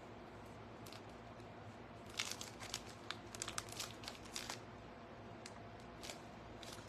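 Plastic piping bag crinkling and clicking in quick clusters as it is squeezed and handled, over a faint steady hum.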